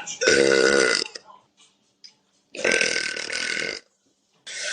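A young woman burping loudly twice. The first burp, about a quarter second in, is a voiced belch with a wavering pitch that lasts just under a second; the second comes about a second and a half later and is rougher. A steady hiss starts near the end.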